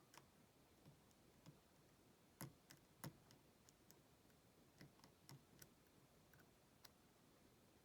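Faint, irregular clicks of a lock pick working the pins inside a padlock while it is held under tension, with two louder clicks about two and a half and three seconds in.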